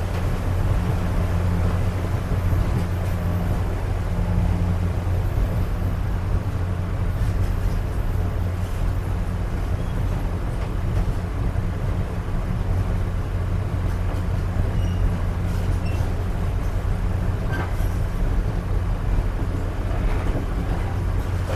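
Railroad passenger coach in motion, heard from its open end vestibule: a steady low rumble with an even rushing noise over it, and a couple of faint short high squeaks about two-thirds through.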